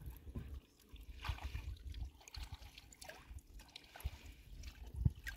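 River water sloshing and lapping around a person wading deep in it, with small splashes and a low uneven rumble underneath.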